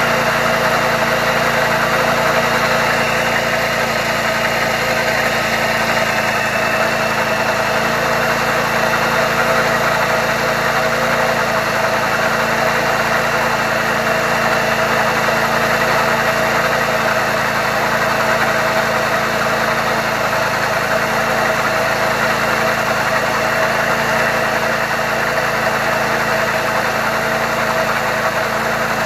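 Baotian Rebel scooter's 72cc GY6 four-stroke single-cylinder engine idling steadily, heard close to the exhaust, while it warms up after a cold start at minus 10 °C.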